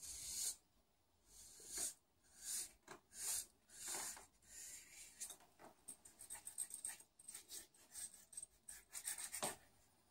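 Marker pen rubbing on paper in short scratchy strokes, spaced out at first, then quicker and closer together before stopping about nine and a half seconds in.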